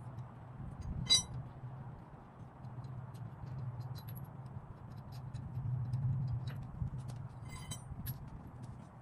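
Light metallic clinks and taps, with a sharp ringing clink about a second in and another near the end, over a steady low hum.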